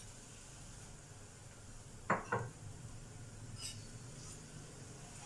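Two quick clinks of kitchenware, a spoon and dishes at the stove, about two seconds in, over a low steady hum.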